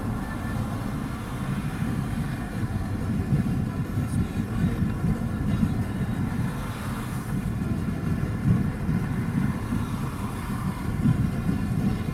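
Steady low rumble of road and engine noise inside a vehicle driving along a highway.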